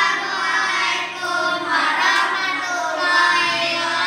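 A group of children singing together in unison, their voices held on long notes.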